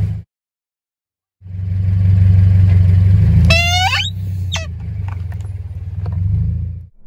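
Car creeping forward with a low, steady rumble. About halfway through, a plastic toy horn squashed under the tyre lets out a short toot that rises in pitch, followed by a few sharp cracks of plastic.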